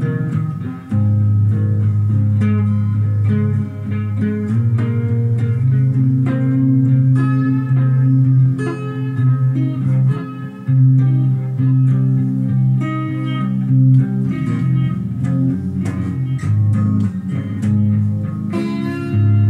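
Guitar being played: a run of plucked notes over sustained low notes, without a pause.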